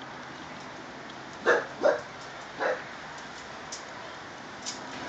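Dog barking three times: two quick barks, then a third a moment later.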